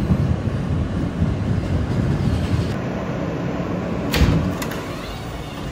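Interior of an R160 subway car running as it slows into a station, then a sharp door thunk about four seconds in as the doors open.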